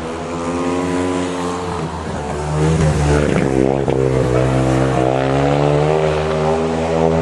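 A motor engine running steadily with a pitched hum, its note shifting and growing louder about two and a half seconds in.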